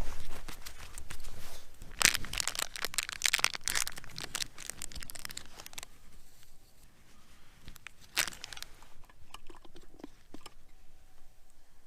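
Crinkling, crackling plastic being crumpled and handled in bursts, densest from about two to six seconds in, with one more short burst around eight seconds.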